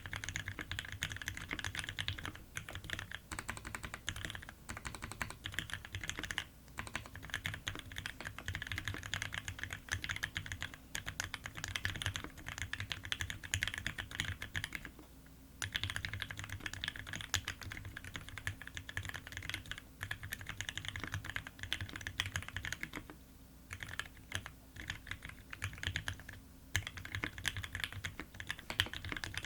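Steady fast typing on a custom mechanical keyboard with lubed Gateron Ink Black linear switches in a brass plate and GMK Metropolis keycaps: dense keystroke clacks with a low thock under them, broken by a few brief pauses.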